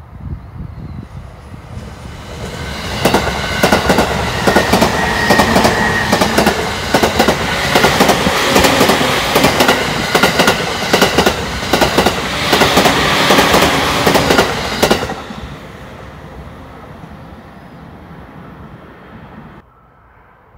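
A JR East suburban electric multiple unit approaching and passing close by, its wheels clattering in a quick rhythm over the rail joints, loudest for about twelve seconds before fading away.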